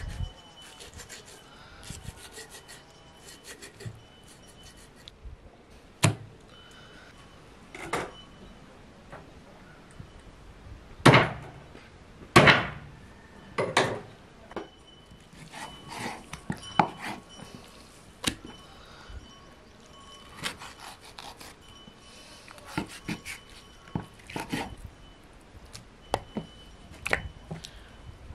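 Knife cutting up a skinned rabbit on a wooden chopping board: irregular knocks of the blade against the wood and short scrapes, with two louder knocks about halfway through.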